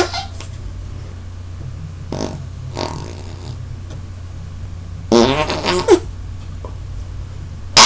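Armpit farts made by pumping a hand cupped in the armpit: two faint puffs a couple of seconds in, then a loud buzzing fart sound that wobbles in pitch for about a second, about five seconds in. Another sharp one starts at the very end.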